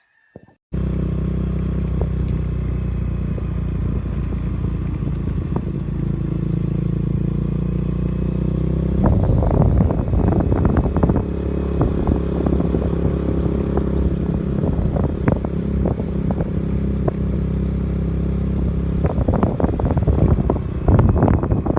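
An engine running steadily, with bouts of rattling and clattering about a third of the way in and near the end.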